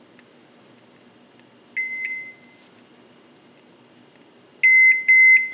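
Electronic oven control panel beeping as its keypad is pressed to set the timer: one beep about two seconds in, then two quick beeps near the end, with faint button clicks between. A faint steady hum runs underneath.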